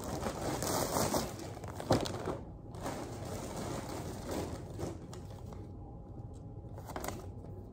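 Tissue paper crinkling and rustling as a gift is unwrapped by hand, with a sharp crackle about two seconds in. It then settles to softer paper handling as the card is taken out.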